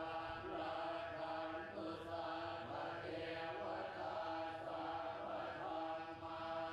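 A large group of Buddhist monks chanting in unison, many voices held on a steady pitch.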